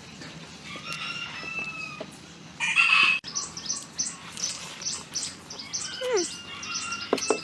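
A rooster crowing a few times, its loudest call about three seconds in. From about halfway, a small bird chirps in a quick, regular series.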